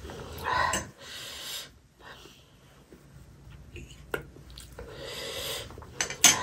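A person breathing hard in and out through the mouth and nose between bites, the huffing of someone eating spicy chilli-oil food. There is a sharp click shortly after six seconds.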